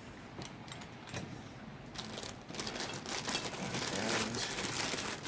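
Hands handling small parts on a workbench: a few light clicks, then about two seconds in a louder, denser crinkling rustle with many small clicks.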